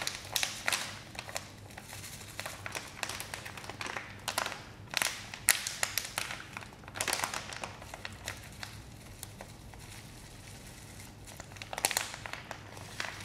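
Plastic bag of dried herb crinkling and rustling as a spoon scoops the herb out, in scattered short crackles and clicks that thin out for a few seconds in the middle.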